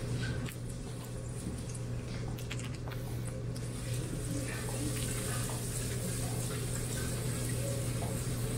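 Omelette sizzling in a frying pan as the egg mixture and diced fillings are stirred with a silicone spatula, a few light clicks of utensils early on giving way to a steady hiss from about three and a half seconds in. A low steady hum runs underneath.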